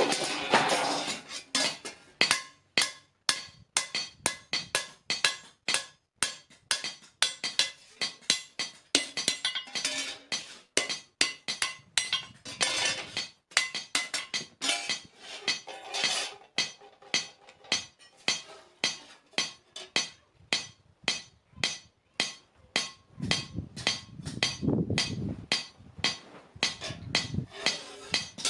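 Blacksmith's hammer striking hot iron on an anvil in a steady run of ringing blows, about three a second, while forging a spade blade.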